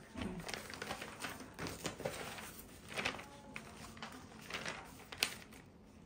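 Paper pages rustling and crinkling as a sheaf of drawings is handled and a page is turned, with a sharper snap of paper about five seconds in.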